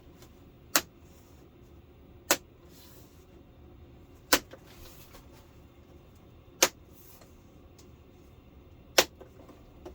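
Five sharp plastic clicks a couple of seconds apart: the retaining clips of an LCD television's panel frame snapping free one by one as they are prised open.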